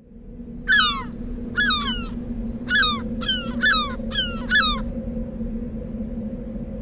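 A gull calling seven times in quick succession, each a short, harsh cry that slides downward in pitch, over a steady low hum.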